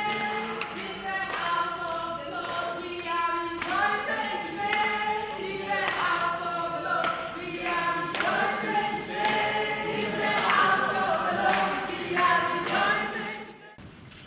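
A choir singing, several voices holding and moving between sustained notes, cut off abruptly near the end.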